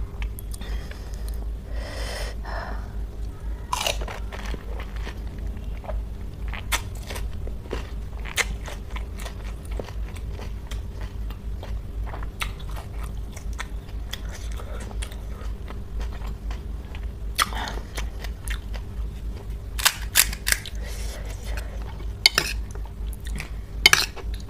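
A person chewing and crunching crisp food close to the microphone, with sharp crunches scattered throughout and loudest about 20 to 24 seconds in, over a steady low hum.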